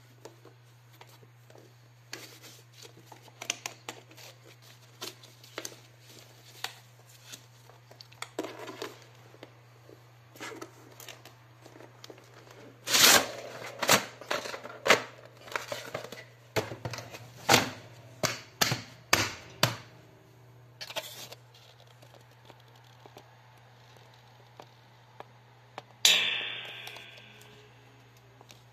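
Hard plastic of a collapsible telescoping stool being handled: scattered clicks and rattles, then a run of loud sharp clicks as its plastic segments are pulled out, and near the end a single knock with a short ring.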